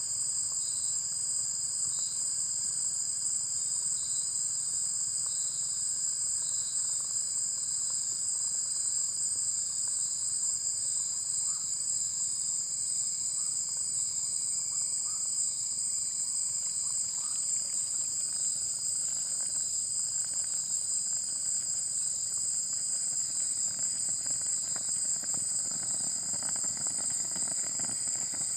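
A chorus of insects shrilling steadily in two high, even tones. A fainter chirp repeats a little more than once a second through the first half.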